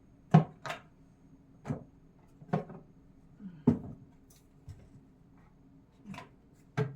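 Small seasoning containers being set down and shuffled on a kitchen cabinet shelf: a series of short, separate knocks and clacks, about seven of them.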